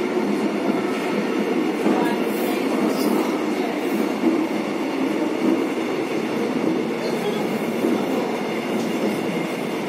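Seoul Metro Line 9 subway train running between stations, heard from inside the carriage: a steady, loud rumble of wheels on rail and motor noise.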